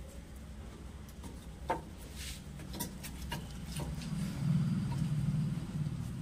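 A few light clicks and taps of CPVC pipe fittings being handled and pushed into place, over a steady low hum that swells about four seconds in.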